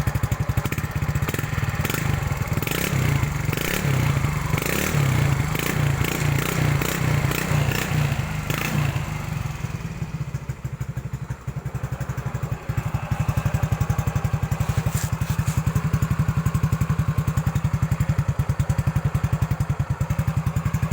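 Yamaha Mio 125 scooter's single-cylinder four-stroke engine running through a newly fitted aftermarket exhaust, not very loud and with a clear tone. For the first eight seconds or so it runs livelier with clattering knocks, then it settles into a steady idle.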